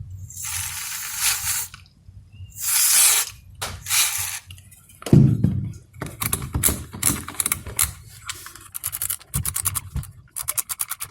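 Three short hisses of a spray can of alcohol contact cleaner aimed into the program selector dial of a Samsung NX1000 camera, then, after a knock about five seconds in, rapid clicking as the dial is turned back and forth through its detents to work the cleaner over its dirty, sticking contacts.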